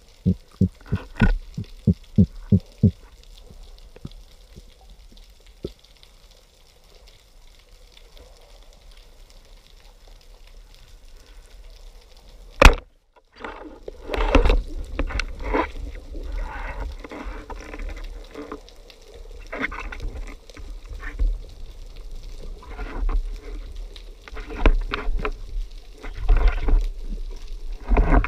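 Underwater recording: a band-powered speargun firing with a single sharp crack about halfway through, followed by irregular knocking and scraping of the gun and spear shaft as the speared fish is handled. Near the start comes a quick run of short knocks, about three a second.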